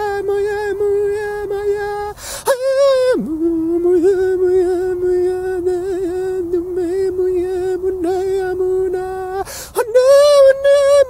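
A man's voice chanting long held, wordless notes. A note of about two seconds is followed by a quick breath and a brief higher note, then a long steady note of about six seconds. After another breath near the end, a higher note is held.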